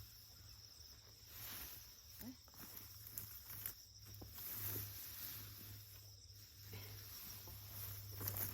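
Steady insect trilling, with intermittent rustling in vegetation and footsteps.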